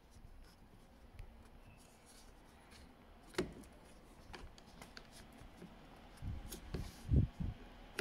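Hands refitting the plastic tweeter trim onto the inside of a BMW E92 door: light plastic clicks and rubbing, one sharp click about three and a half seconds in, then a few dull thumps near the end as the trim is pressed home onto its clip.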